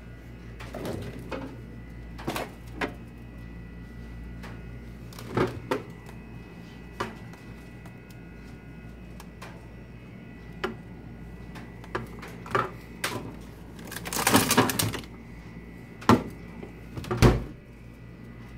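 Refrigerator being opened and its contents handled: scattered knocks and clicks, a rustling clatter about two-thirds of the way through, and two sharper thuds near the end, over a steady room hum with a faint high tone.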